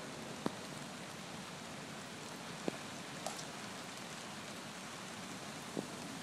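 Steady rain falling on wet pavement, heard from under an umbrella, with three sharp taps about half a second, nearly three seconds and nearly six seconds in.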